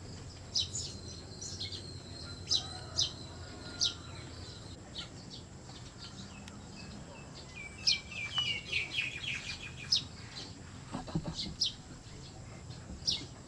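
Birds chirping: short, high calls scattered through, with a quick run of chirps about eight seconds in, over a faint steady high whine.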